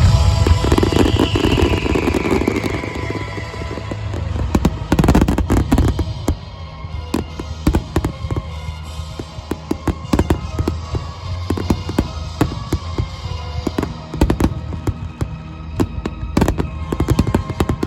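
Aerial fireworks: a heavy burst about five seconds in, then dense rapid crackling pops, many per second, from crackling stars. Music plays through the show's loudspeakers alongside.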